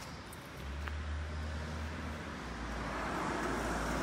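A motor vehicle passing by: a low engine hum comes in about half a second in and steps down slightly in pitch halfway through, while tyre and road noise swells to its loudest near the end.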